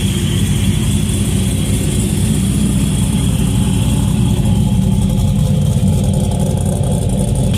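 Car engine idling steadily, a low even rumble with no revving.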